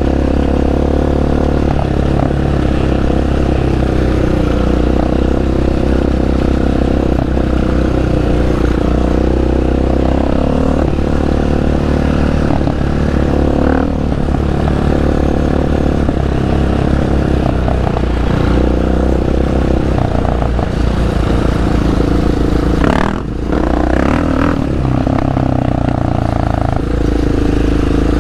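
Sport quad (ATV) engine running hard as it is ridden, its pitch rising and falling with the throttle, with a brief drop in engine sound a little over three-quarters of the way through.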